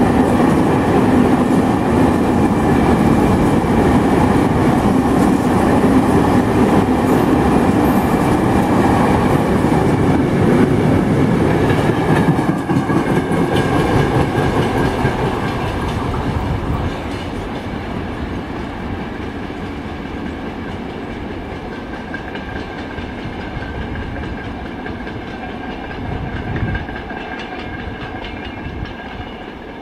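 Freight train wagons rolling past close by on the rails, then the sound fading steadily as the train moves away after about twelve seconds. A faint high steady tone lingers as it fades.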